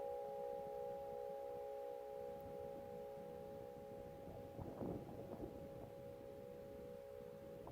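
Hum of church bells in a portable belfry dying away after the last strike: several steady ringing tones fading slowly, with no new strikes. A brief rustle of wind or handling noise about five seconds in.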